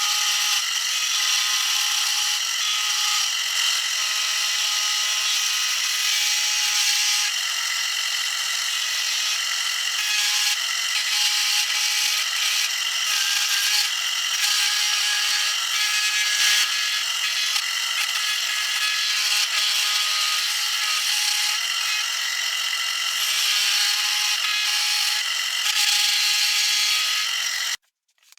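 A power tool running steadily against wood while shaping a maple saw handle. It cuts off suddenly near the end.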